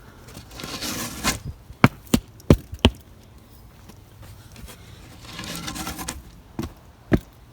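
Topsoil being scraped and levelled with a hand tool: two spells of scraping through loose soil, one near the start and one about five seconds in, and between them several sharp knocks, four in quick succession and two more near the end.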